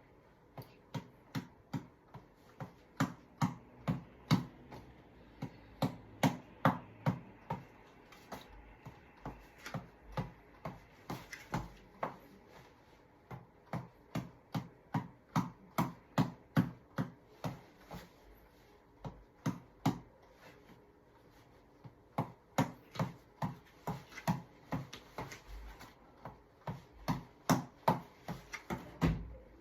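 A tap ball being struck over and over: sharp taps about two to three a second, in runs broken by short pauses.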